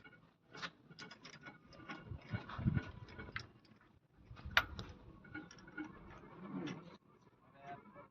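Irregular metallic clicks and clanks of a wheel-nut box spanner and its rod being worked on a vehicle wheel's nuts, with a sharper knock about four and a half seconds in.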